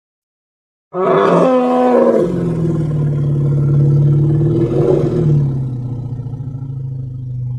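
Animated Tyrannosaurus rex roar sound effect: one long roar starting about a second in, beginning higher and rougher, then dropping into a long low rumbling growl that holds steady almost to the end.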